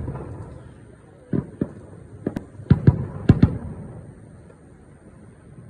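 Fireworks shells bursting: about seven sharp bangs in quick succession from about one to three and a half seconds in, each trailing a rumbling echo that fades away.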